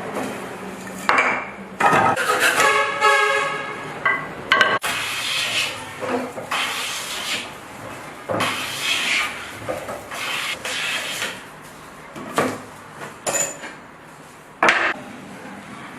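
Metal hand tools clinking and clattering as they are handled, with a series of separate knocks and a brief metallic ring about two to four seconds in.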